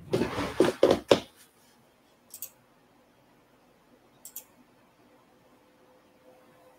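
A loud burst of handling noise, lasting about a second, then two brief faint clicks about two seconds apart.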